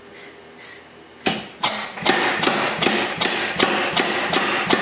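KZ100 air-powered forging hammer striking a hot steel leaf blank in a texturing die. Two single blows about a second in, then a steady run of rapid blows, about two and a half to three a second. A few soft puffs of hiss come before the first blow.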